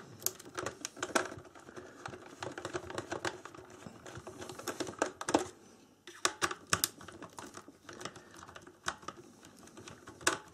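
Phillips screwdriver loosening screws in the plastic underside of a light alarm clock: irregular small clicks and scrapes of the tip in the screw heads, with the plastic housing knocking in the hands. A short lull comes about halfway through.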